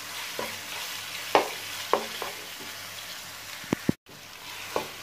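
Marinated goat meat sizzling in hot oil in a nonstick wok, with a wooden spatula knocking and scraping against the pan at irregular intervals as it is stir-fried. The sound cuts out for an instant about four seconds in.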